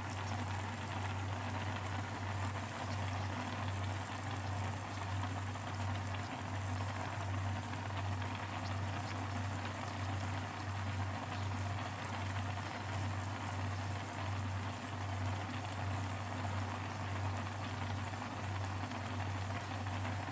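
A pan of water with penne at a rolling boil: a steady bubbling hiss, under a steady low hum.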